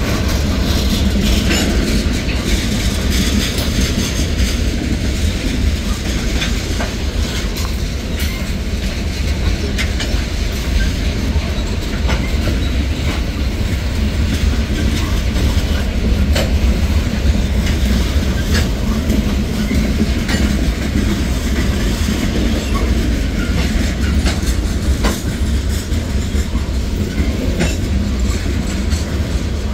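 Freight cars of a manifest train rolling past, steel wheels clicking over rail joints over a steady rumble.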